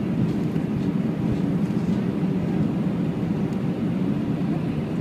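Airbus A321 cabin noise while rolling along the runway after landing: a steady low rumble of the engines and the wheels on the snowy runway, heard from a window seat over the wing.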